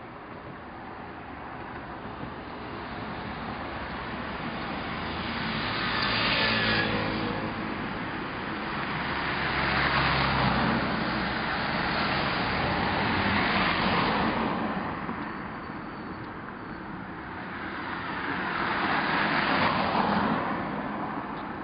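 Road traffic: cars passing one after another, each one swelling and fading away, about four passes in all. The last, near the end, goes by close.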